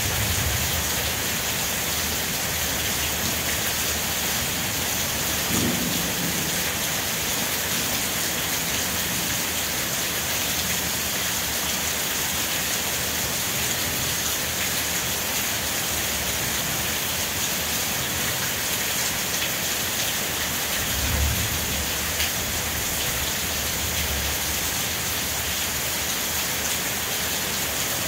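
Rain falling steadily as an even hiss, with low rumbles of thunder: a short one early on the way in and a longer, stronger one about three quarters through.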